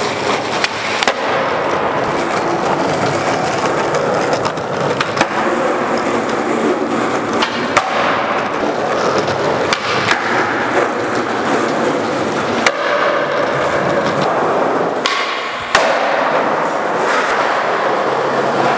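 Skateboard wheels rolling on smooth concrete, with the sharp clacks and slaps of the board popping, flipping and landing.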